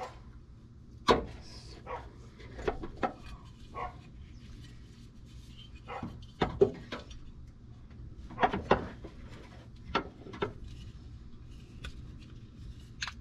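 Scattered clicks and knocks, a dozen or so short separate hits, as a replacement tailgate check is handled and fitted into the Jeep Wrangler JKU tailgate's mounting opening.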